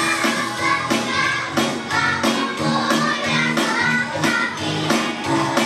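A group of young children singing together over music with a steady beat.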